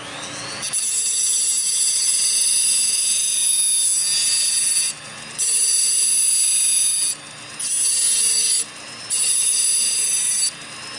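A rotary tool spins up with a rising whine, then the side of its cut-off wheel grinds the steel stub left by the cut-off trigger guard flush with the receiver. The grinding is loud and high-pitched and breaks off briefly about four times as the wheel is lifted from the metal, while the motor keeps spinning.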